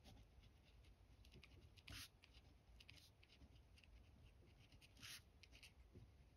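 Faint scratching of a pen writing cursive on lined paper, in many small strokes, with two brief louder strokes about two seconds in and about five seconds in.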